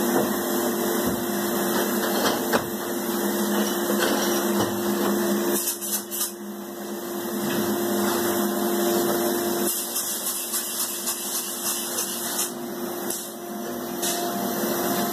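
Spray foam insulation being sprayed: a steady hiss from the spray gun over a steady machine hum, easing off briefly about six seconds in.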